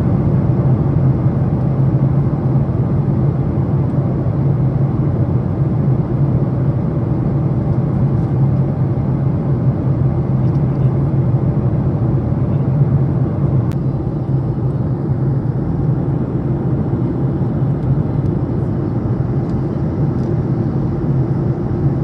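Steady cabin noise inside a Boeing 737 MAX airliner in flight: a low, even hum under a rushing hiss.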